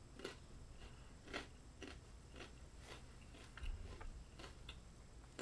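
Faint mouth sounds of someone chewing food: irregular soft clicks and smacks, about two a second.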